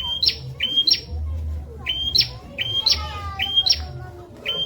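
Prinia (prenjak) song: a repeated two-part phrase, a short level whistle followed by a sharp rising sweep, given several times in a row. A lower, falling run of notes enters about three seconds in, over a steady low hum.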